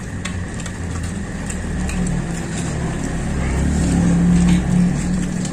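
A motor vehicle's engine running close by, a low hum that grows louder to a peak about four seconds in and then eases off. Faint short clicks of eating sound over it.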